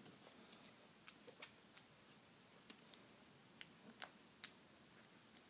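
Faint, scattered clicks and ticks of fingers picking and pulling at the plastic packaging on a Blu-ray steelbook case.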